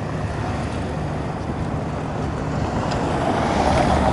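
NH90 military helicopter in flight, a steady rumble of rotor and turbine noise that grows louder about two-thirds of the way through.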